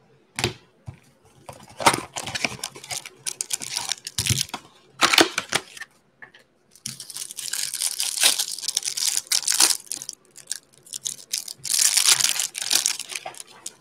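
Cardboard hanger box of trading cards being opened, with a few sharp knocks and scrapes as the wrapped stack of cards comes out. Then the clear plastic wrapping around the cards tears and crinkles in two long stretches.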